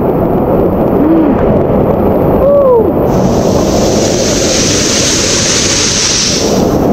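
Rushing water of a waterfall pool close to the microphone, loud and steady, with a sharper hiss of splashing water added from about three seconds in until just before the end. Two short shouts come over the water in the first few seconds.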